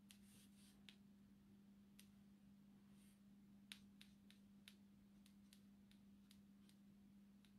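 Near silence: a steady low hum with faint, scattered ticks, about a dozen, spread irregularly through the quiet.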